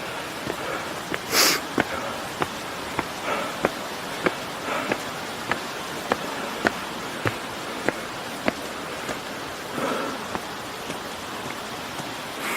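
Footsteps at a steady walking pace, a sharp step about every 0.6 s, over the steady rush of flowing water. A brief hissing rustle comes about one and a half seconds in.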